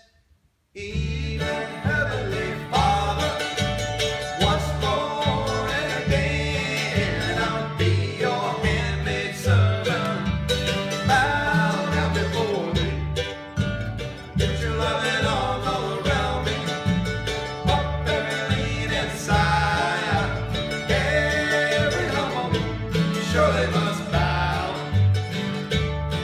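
Bluegrass gospel trio of mandolin, acoustic guitar and upright bass playing a song, with male voices singing. The music starts after a brief silence about a second in, with the plucked bass marking a steady beat underneath.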